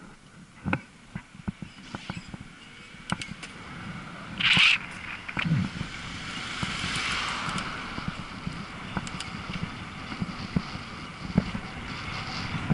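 Irregular rattling knocks from an e-bike and its mounted camera jolting over the road, under a steady rush of wind and traffic that swells in the middle. A short loud hiss comes about four and a half seconds in.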